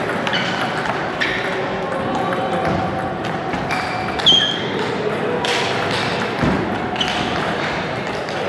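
Table tennis ball clicking off bats and the table in a rally, a few sharp irregular ticks. The loudest is a short ringing ping about four seconds in. Murmur of voices throughout.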